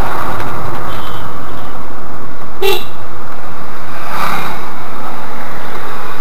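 Steady road and engine noise inside a Škoda Rapid 1.6 MPI descending a mountain road, with one short horn toot about two and a half seconds in.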